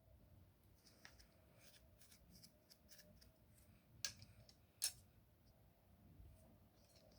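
Faint sticky clicks and crackles of foamy slime being handled, its air bubbles popping, with two sharper pops about four and five seconds in.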